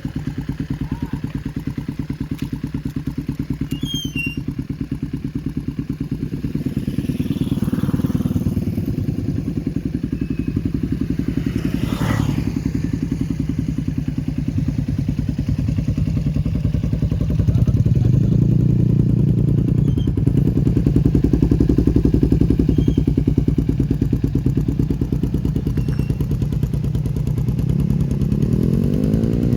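Kawasaki Ninja 250R's parallel-twin engine running through a Taiwan-made Akrapovic slip-on silencer. It idles with the revs raised briefly about eight seconds in and held up for several seconds from about eighteen seconds. Near the end it gives a quick rev up and back down.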